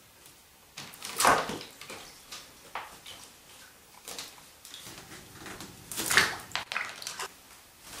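African grey parrot splashing in a shallow sink of water, flopping in and beating her wings, in uneven bursts, the loudest about a second in and again about six seconds in.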